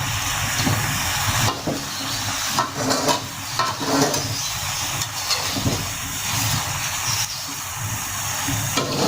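Fish braising in a pan with a little turmeric-spiced liquid, hissing and sizzling steadily as the liquid cooks down. Now and then short knocks and scrapes of a utensil turning the fish in the pan.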